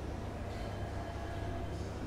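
Muffled hospital-room ambience: a steady low rumble with a faint even hum above it, dull as if heard through a closed door.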